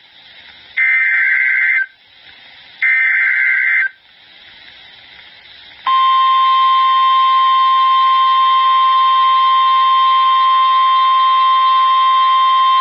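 Emergency Alert System SAME header: two buzzy digital data bursts, each about a second long and a second apart. About six seconds in, a loud steady alert tone near 1 kHz (the NOAA Weather Radio 1050 Hz warning alarm) starts and holds, signalling a new warning.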